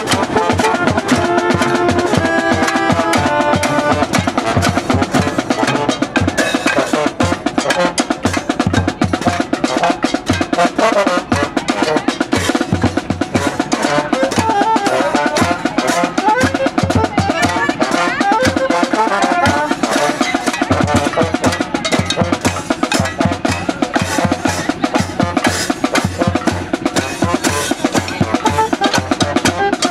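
Protesters' drums and other hand percussion beaten in a fast, steady rhythm, with voices mixed in over the drumming.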